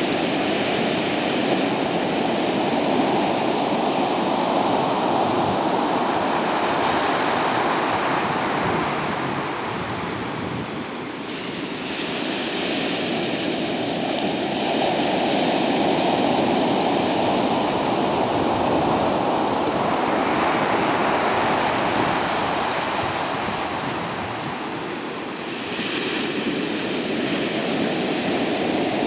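Atlantic Ocean surf on a sandy beach: waves breaking and washing up the shore in a continuous rush of water. It swells and eases, with a fresh hissing surge about every twelve to thirteen seconds.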